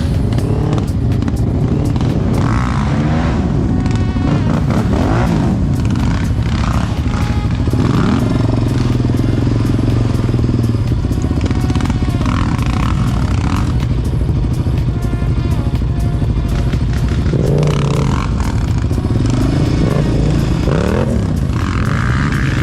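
Quad ATV engines running under way off-road, the revs rising and falling again and again as the throttle is worked.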